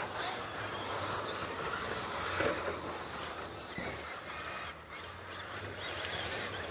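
Radio-controlled stadium trucks running around a dirt track, heard as a steady mix of motor and tyre noise from the cars spread around the circuit.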